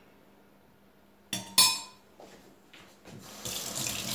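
Two sharp clinks of cutlery against dishware a little over a second in, then a kitchen tap starts running near the end.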